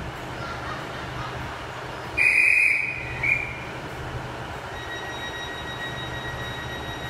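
A platform dispatcher's whistle blown once long and then once briefly, about two seconds in, the signal that the train is ready to depart. Under it, a stationary diesel passenger train hums steadily at idle, and a faint steady high tone starts about halfway through.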